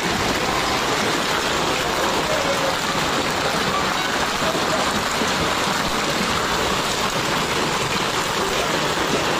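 A downpour of hail and rain pelting a street and pavement. It makes a dense, steady hiss of countless impacts, with water running in the road.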